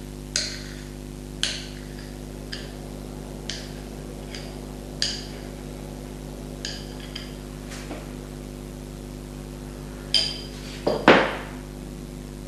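Kitchen utensils and a bowl clinking and tapping lightly at irregular moments, over a steady hum. A louder knock comes near the end.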